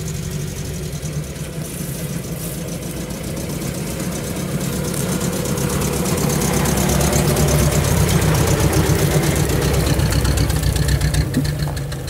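UAZ-469B off-roader's engine running at low revs as it crawls over a dirt track, growing louder as it comes close past, about halfway through, and easing off near the end.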